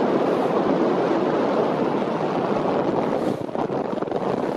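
Steady wind rush and wind buffeting the microphone aboard a schooner under sail, easing briefly about three seconds in.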